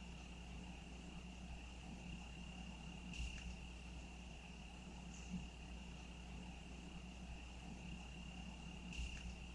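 Crickets trilling in one steady, high, continuous tone, with a few brief faint chirps on top.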